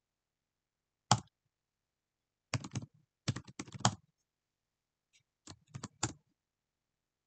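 Typing on a computer keyboard: one sharp keystroke about a second in, a quick run of keystrokes around the middle, and a few more near the end, with silence between.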